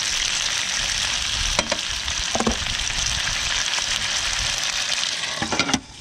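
Whiting fillets and capsicum sizzling in hot oil in a frying pan on a portable gas stove, a steady hiss with a few light knocks. The sizzle cuts off abruptly near the end as the pan is lifted off the heat.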